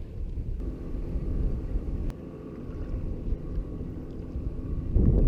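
Motorboat engine droning steadily as it goes by, with low wind rumble on the microphone that grows stronger near the end.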